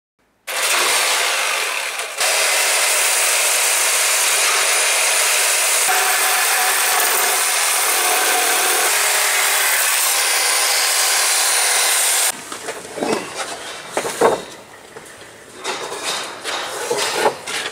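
A power saw cutting wood, running steadily for about twelve seconds with a brief dip near the start, then stopping abruptly. After it come scattered knocks and clatter of timber and tools being handled.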